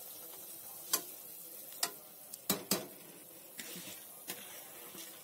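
A ladle knocking about six times on a pressure cooker pot as soaked rice is tipped into the boiling water, over a faint steady simmer.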